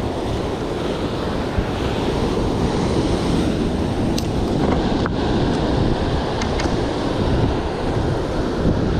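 Surf breaking and washing over shoreline rocks, with wind buffeting the microphone. A few light clicks come through around the middle.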